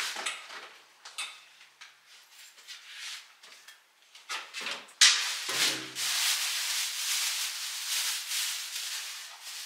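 Thin plastic produce bag crinkling and rustling as it is handled. Light scattered rustles and knocks come first, then from about five seconds in the crinkling turns loud and continuous.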